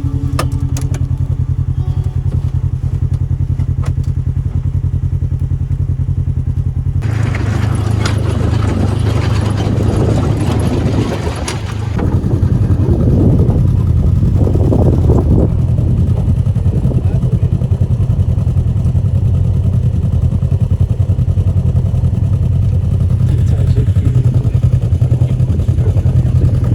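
A vehicle engine running steadily under load, with wind and road noise rising about seven seconds in and growing stronger from about twelve seconds.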